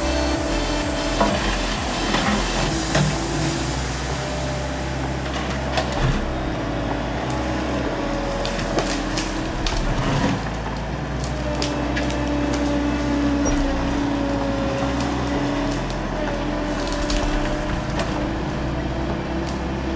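Compact skid-steer loader's engine running steadily under load, its pitch shifting a little partway through, as the bucket pushes at the base of a leaning tree. Scattered sharp cracks and snaps of wood and roots breaking run through it.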